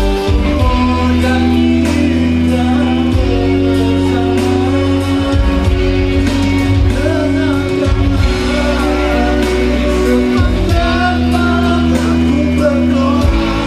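Man singing into a microphone over amplified backing music with long held bass notes and chords.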